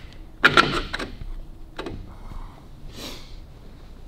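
Metal clinks and clunks of bolts and tools being handled while the gearbox is fitted to a motorcycle frame: a sharp cluster about half a second in, a single clink near two seconds, and a short scraping rustle about three seconds in.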